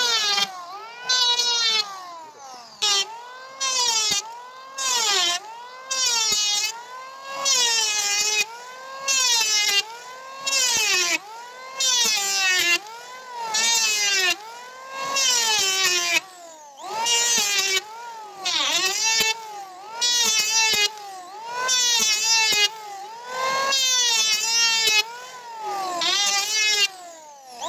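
Handheld electric wood planer running and cutting along a timber beam in short repeated passes: its motor whine dips and rises about once a second, with loud bursts of cutting noise each time the blades bite.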